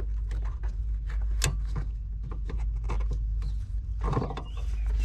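Stock H11 halogen headlight bulb being twisted out of its plastic headlight housing: a run of irregular small plastic clicks and scrapes over a steady low rumble.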